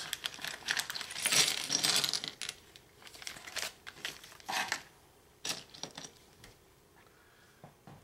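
Thin plastic parts bag crinkling for about two and a half seconds as it is handled and emptied, then several separate light clicks and clatters of hard plastic snap-kit pieces against each other and the cutting mat.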